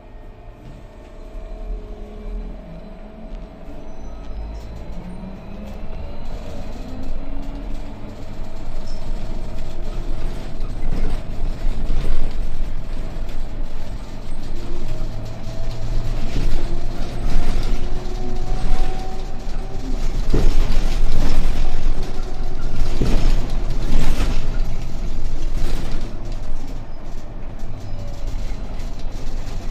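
Inside a moving trolleybus: the electric traction drive whines in tones that glide up and down in pitch as it speeds up and slows, over a low road rumble with knocks and rattles. The noise builds over the first dozen seconds and then stays loud.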